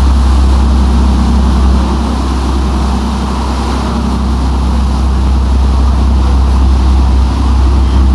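Dive-safari motor yacht's engine running steadily under way: a loud, constant low drone with a rushing hiss over it.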